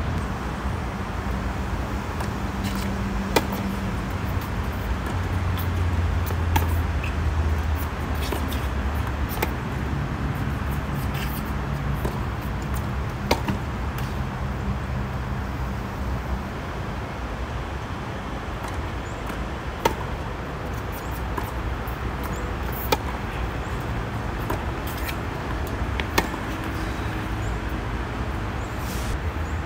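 Tennis balls being struck by rackets during a hard-court rally: sharp pops a few seconds apart over a steady rumble of road traffic.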